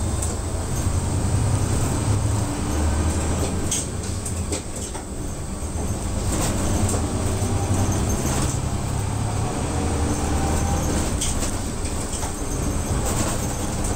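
Route bus heard from inside the cabin while driving: the engine's low, steady hum under road noise, with a few short clicks and rattles now and then.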